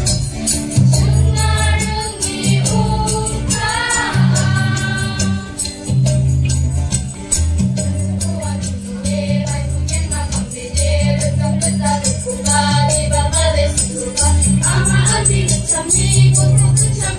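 A girls' choir singing a song together through microphones, over amplified accompaniment with a steady bass line and a light, even percussive rhythm like a shaker.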